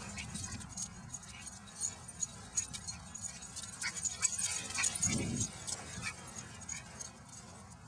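Two puppies, one a pug, playing and scuffling, with light jingling and many small clicks, and a brief low sound about five seconds in.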